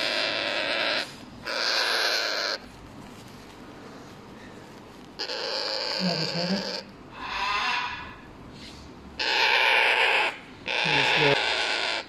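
African grey parrot chicks giving about six harsh calls, each about a second long with short pauses between.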